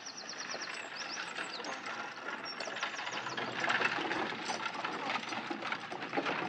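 A horse's hooves clopping and the wheels of a horse-drawn carriage rattling, in a steady rhythmic clatter that grows louder about halfway through. A small bird trills rapidly near the start.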